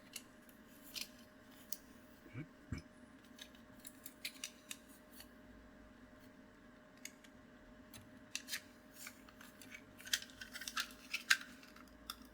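Irregular small, sharp clicks and ticks from handling a gaming mouse's plastic parts, growing busier near the end.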